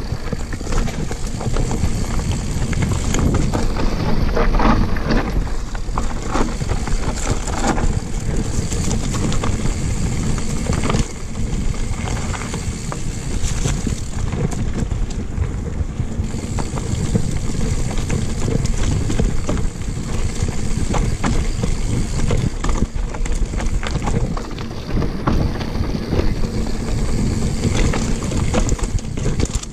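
Mountain bike riding fast down a rocky dirt singletrack. The tyres rumble and crunch over dirt and stones, with frequent sharp rattles and knocks from the bike as it takes the bumps.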